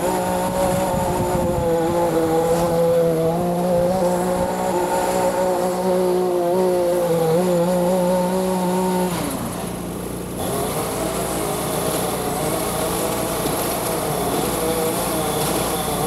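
Small petrol engine of outdoor power equipment running steadily at high speed. About nine seconds in it drops away, and a rougher engine sound takes over.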